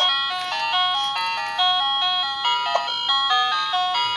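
Tinkly electronic melody of short, quick stepped notes, in the manner of a chime tune.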